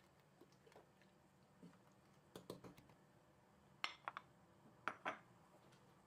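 Faint clinks and knocks of kitchen utensils against a pot, in three small clusters over near-silent room tone.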